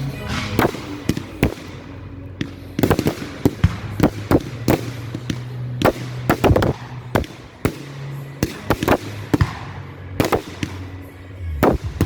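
Fireworks going off in an irregular string of sharp bangs and cracks, some in quick clusters, over background music.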